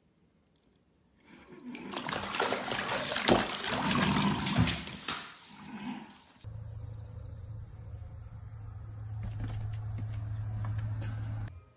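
Water splashing and sloshing in a bathtub, with sharp knocks, as a cat goes into the water. About six and a half seconds in, this gives way to a steady low hum with a faint high whine, which cuts off near the end.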